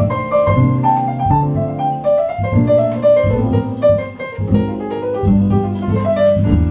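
Jazz piano played live: quick single-note lines in the middle and upper register over low chords.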